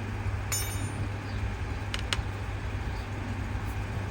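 Metal brake parts and tools being handled: one ringing metallic clink about half a second in, then two sharp clicks around two seconds, over a steady low rumble.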